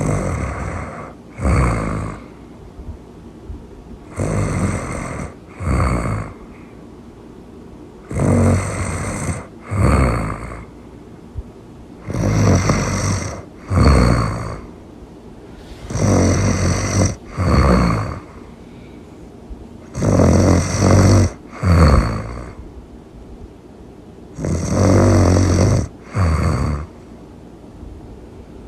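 Loud snoring in a steady rhythm. Seven breaths come about four seconds apart, each a longer snore followed closely by a shorter second one.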